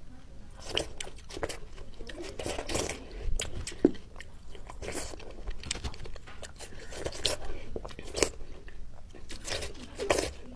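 A person biting and chewing crunchy food close to the microphone: an irregular run of crisp crunches, a couple to a few each second.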